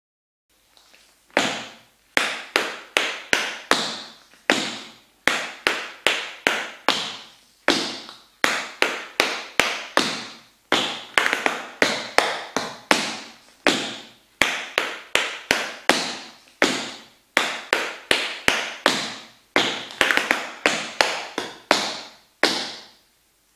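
Metal taps on tap shoes striking a wooden board floor in a rhythmic tap dance combination: sharp, ringing taps at roughly two to three a second, starting about a second and a half in, with a short pause near the end.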